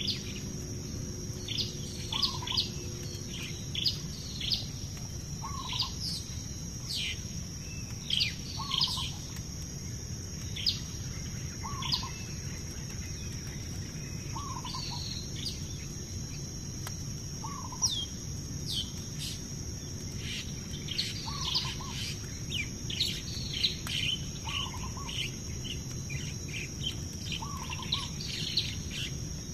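Wild birds calling from the riverbank trees: many short, high, downward-sweeping chirps, with a lower call repeating about every two seconds. Underneath are a steady high-pitched whine and a low steady rumble.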